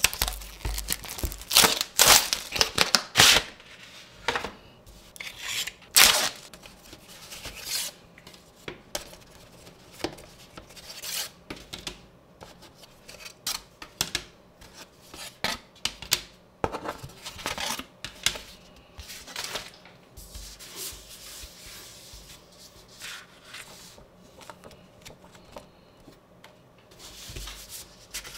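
Unpacking handling noises: plastic shrink-wrap tearing and crinkling off a cardboard box, the loudest bursts early on, then irregular rustles, slides and light taps as thin laser-cut plywood sheets and paper are handled.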